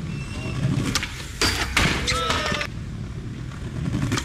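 People's voices calling out over a low, steady rumble, loudest between about one and a half and two and a half seconds in.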